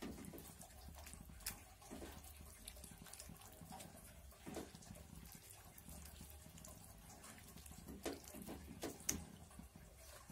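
Pak choy simmering in its sauce in a wok, a faint steady bubbling sizzle, with a few soft knocks and scrapes of a spatula against the pan, most of them about eight to nine seconds in.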